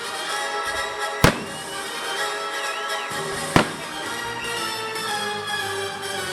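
Fireworks shells bursting, two sharp bangs about a second and three and a half seconds in, over steady music playing.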